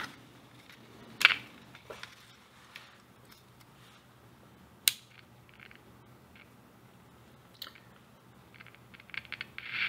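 Handling noise from a small plastic pocket transistor radio as its case is slid off and the chassis is held and worked: a few sharp clicks and taps, the loudest about a second in and near the middle, then a run of light clicks near the end.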